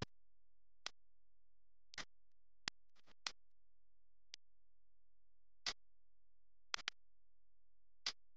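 About ten short, sharp clicks or taps at irregular intervals, some in quick pairs, over near silence.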